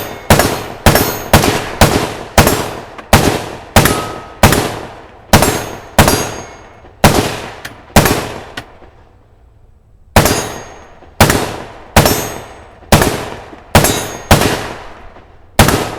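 Rapid string of single gunshots, about one every half second to second, each ringing out briefly. The firing breaks off for about a second and a half midway, then resumes at the same pace.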